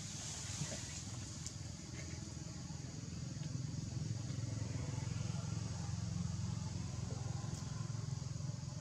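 Low hum of a motor vehicle's engine running, swelling about three seconds in and then holding steady, over a faint steady high buzz.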